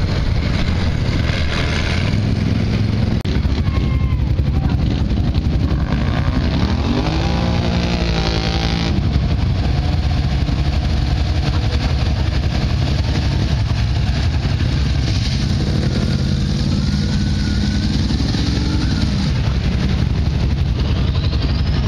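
Big-tyred mud trucks' engines running loud and revving, with the engine note climbing about a third of the way in and again near the end as a lifted truck strains to tow a stuck pickup out of deep mud on a strap.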